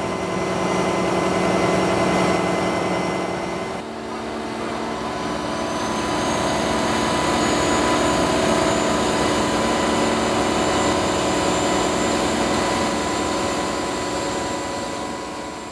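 Volvo EC300E NL excavator's diesel engine running steadily under hydraulic load as the boom raises a drilling-rig mast, with steady high-pitched tones over the engine. The sound dips and its tone shifts briefly about four seconds in.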